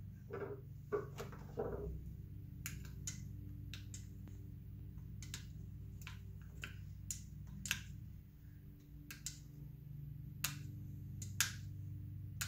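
Irregular sharp clicks and taps, about one or two a second, from hand tools and small metal parts on a Chevy 454 big-block cylinder head as it is taken apart, over a steady low hum.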